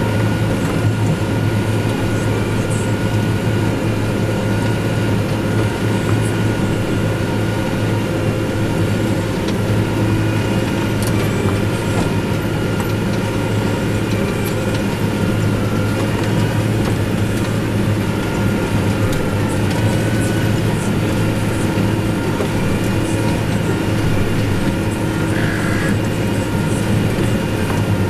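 Farm tractor engine running steadily at working revs, a continuous low drone with a steady hum and whine over it, as it pulls a hay baler in the field.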